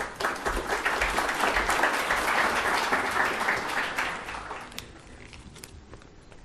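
Audience applauding, a dense patter of many hands clapping that dies away about four to five seconds in.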